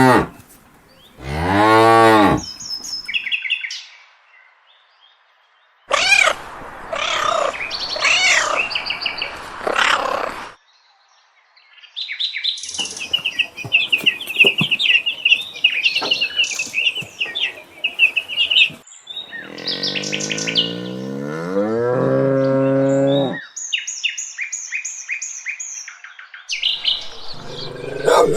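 Cows mooing: a short moo early on and a long, low moo whose pitch rises and then falls about two-thirds of the way through. Between them come stretches of high bird chirping.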